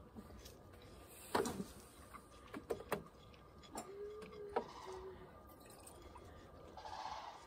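Clicks and knocks of a plastic gallon water jug being picked up and handled at a camp stove, followed near the end by water poured from it.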